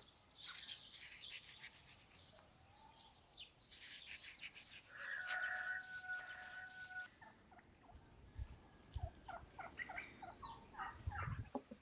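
Farmyard birds calling: one long steady call about five seconds in, then a run of short clucking calls near the end. Small crisp clicks of a knife slicing through a lemon come in two clusters, at the start and around four seconds in.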